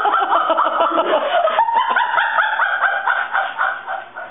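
People laughing hard in long runs of quick, repeated bursts, fading near the end.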